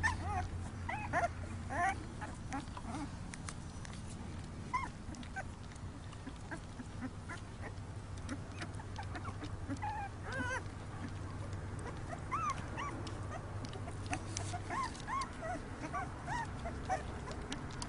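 Puppies eating dry kibble from a large metal pan, with scattered small high whimpers and squeaks and many short clicks and crunches of kibble throughout.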